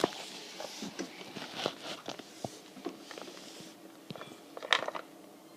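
A scatter of small irregular clicks and taps, with a short hiss at the start and a louder cluster of clicks just before the end.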